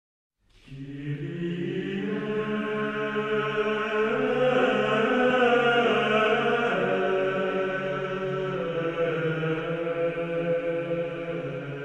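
Slow choral intro music of long, chant-like held chords with no beat. It starts about half a second in and moves to a new chord every couple of seconds.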